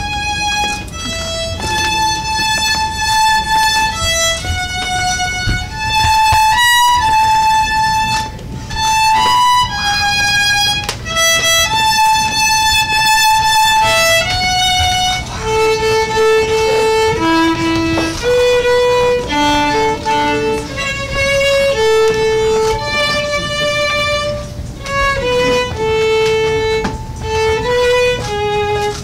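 Solo violin playing a melody of held notes as the wedding processional.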